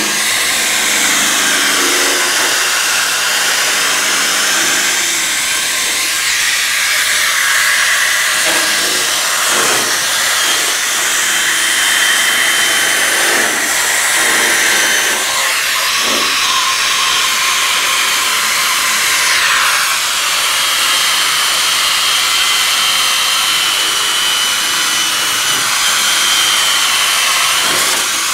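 Corded high-speed rotary tool with a wire-brush attachment running continuously against a rusty steel truck bed rail, a loud hissing whine whose pitch dips and recovers several times as the brush is pressed on and eased off.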